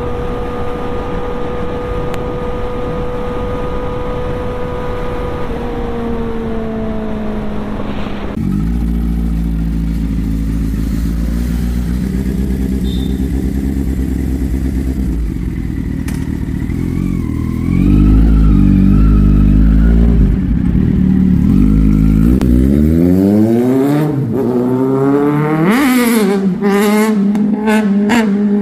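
Kawasaki Z900 inline-four engine. First it cruises steadily, with wind noise on the microphone, and the engine note drops as the bike slows about six seconds in. Then, heard from the roadside, it runs low and uneven, and near the end it revs hard in a sharply rising note that peaks and falls away.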